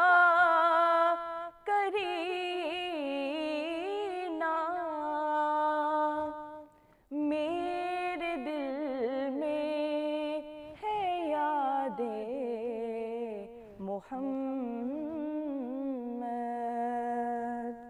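A woman singing a naat unaccompanied, in long, wavering, ornamented held notes over several phrases with short breaths between them.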